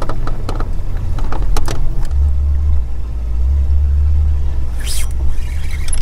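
Wind buffeting the microphone, a low rumble that grows stronger about two seconds in, with a few light clicks in the first two seconds.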